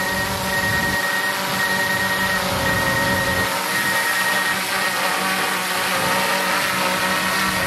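Quadcopter camera drone hovering close by as it comes in to land, its propellers giving a loud, steady, many-toned whine.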